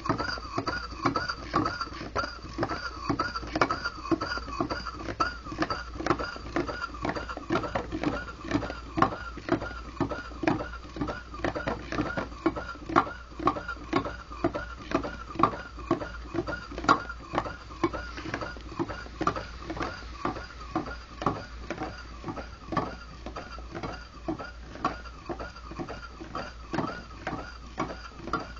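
Homemade Pringles-tube Stirling engine running at a steady speed, its moving parts giving a rhythmic squeak that rises and falls in pitch, with a tick, about three times a second.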